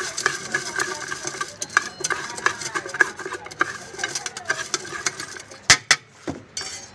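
Steel spoon rattling and scraping against the inside of a tall steel tin as puffed rice for jhal muri is stirred and tossed: quick, dense clicks over a ringing from the tin. A few sharper knocks come near the end.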